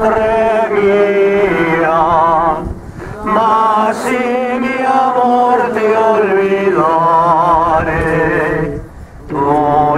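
Slow devotional singing with a strong, wavering vibrato, held in long phrases and broken by short pauses about three seconds in and just before the end.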